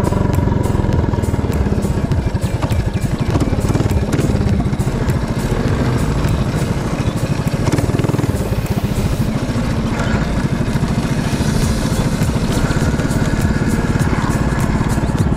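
Mini bike's small engine running steadily while the bike rides along.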